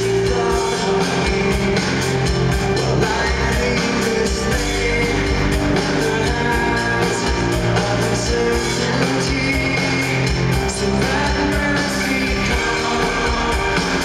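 Rock band playing live: a male lead singer singing into a microphone over electric bass, guitar, keyboards and a steady drum beat, loud and dense as heard from the arena crowd.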